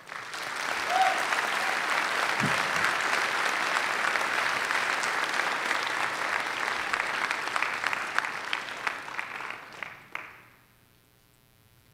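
Audience applauding, dying away after about ten seconds.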